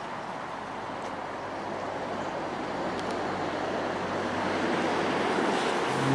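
Road traffic noise: a vehicle's tyres and engine growing steadily louder as it approaches.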